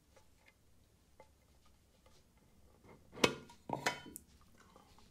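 Metal tin watch box being opened: faint scrapes and small clicks, then two metallic clinks with a short ring about three and four seconds in as the lid comes off and is handled.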